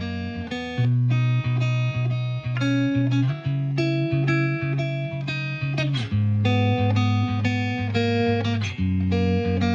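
Background music: plucked guitar over a bass line, with notes changing at a steady rhythm.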